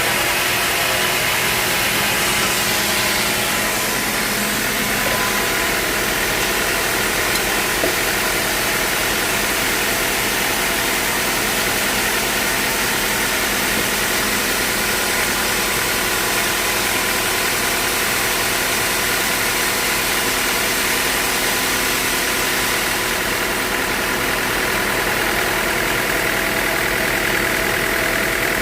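Band sawmill running steadily while sawing a teak log: a loud, continuous mechanical hum and hiss.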